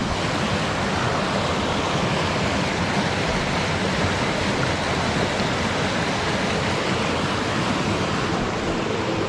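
Steady rush of a stream in flood, water pouring over rocks.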